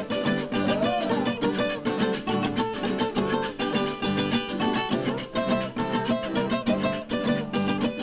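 Small string ensemble of acoustic guitars and smaller guitar-like instruments, strumming and picking a lively instrumental passage of a Huila rajaleña tune with a quick, even strumming rhythm.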